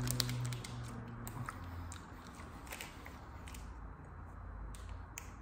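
Quiet chewing and crunching of a chocolate biscuit, with a few sharp crackles scattered through. A low steady hum stops about a second and a half in.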